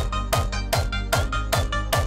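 Euphoric hardstyle electronic music at 150 BPM: a four-on-the-floor hardstyle kick drum hits about every 0.4 seconds, each kick dropping in pitch, under sustained synth chords.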